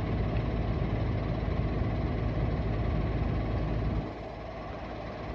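Low, steady engine hum of an idling vehicle, which drops away sharply about four seconds in.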